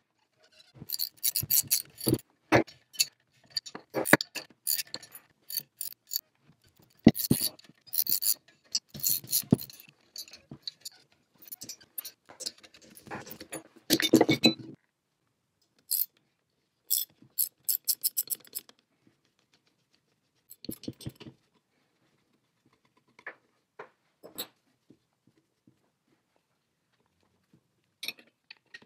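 Metal clicks and clanks of a jaw-type gear puller being set on a pulley and its forcing screw worked to draw the pulley off an old electric motor's shaft. The handling is busiest through the first half, with a run of sharp clicks a little later and then only scattered taps.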